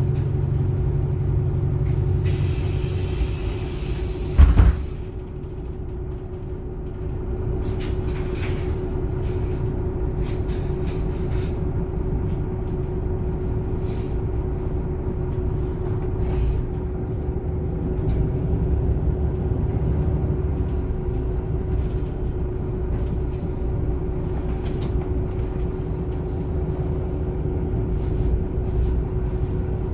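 Onboard a MAN Lion's City A21 bus with its diesel engine and ZF EcoLife automatic drive running. About two seconds in there is a hiss of air, ended by a loud thump. After that the engine runs on steadily with a constant whine, growing a little louder a few seconds later.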